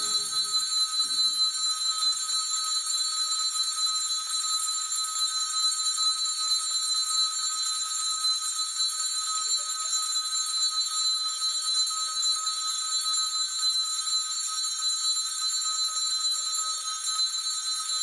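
Altar bells ringing continuously in a steady, high, shimmering jangle, marking the blessing with the Blessed Sacrament at Benediction.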